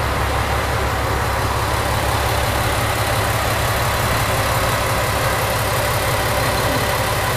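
A JR KiHa 100-series diesel railcar's engine idling steadily while the car stands at the platform, a constant low hum.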